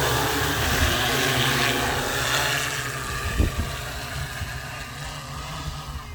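Agricultural spraying drone's rotors humming steadily, growing fainter as it flies off. A brief thump about three and a half seconds in.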